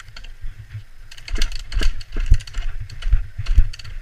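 Irregular clatter of clicks and knocks, densest from about a second in, as a stalled enduro dirt bike is handled and hauled up off the ground; its engine is not running.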